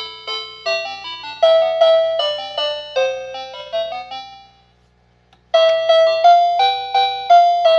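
Toy telephone playing a chiming electronic tune, one note after another, which stops for about a second near the middle and then starts again.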